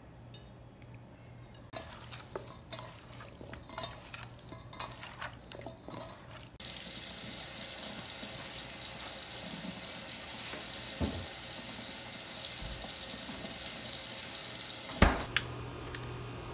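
A spoon clinking and scraping in a stainless steel bowl, tossing chicken wings in olive oil. It gives way to a steady rush like a running tap for about eight seconds, ending with a single loud knock.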